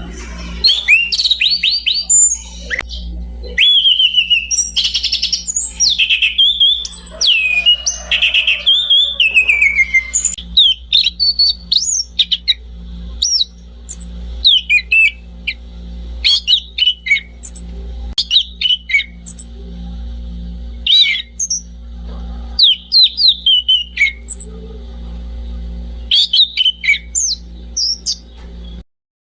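Anis cendana thrush singing: a dense run of rich, varied whistled phrases for about the first ten seconds, then sparser short, separated whistles. A steady low hum runs underneath, and everything stops abruptly near the end.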